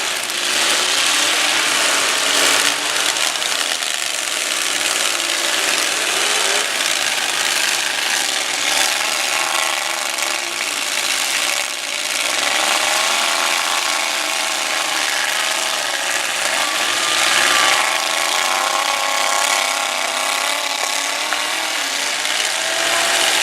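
Several demolition derby trucks' engines revving hard at shifting pitch, loud and continuous, as the trucks drive and ram in the arena.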